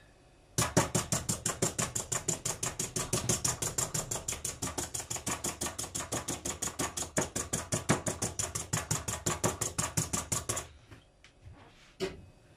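Hand-held spring-loaded needle meat tenderizer being plunged rapidly into raw meat slices on a plastic cutting board: a fast, even run of clicks, about six a second. It stops shortly before the end, followed by one last click.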